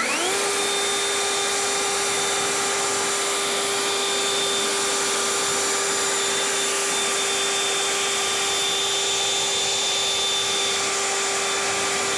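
Greenworks 80V cordless jet leaf blower on turbo. It spins up sharply in the first half second, then runs at full speed with a steady whine over a loud rush of air, blowing water beads off a car's hood.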